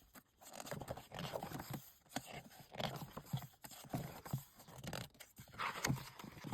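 Thick photobook pages being turned and handled, with irregular paper rustles and scrapes.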